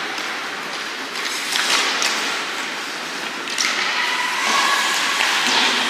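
Ice hockey game play in an arena: skates scraping the ice with scattered sharp clacks of sticks and puck.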